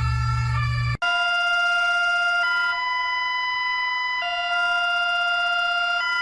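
Emergency Alert System-style electronic alarm tones. The first alarm ends about a second in with a brief dropout. A second alarm follows: a steady chord of pure tones that changes pitch every couple of seconds.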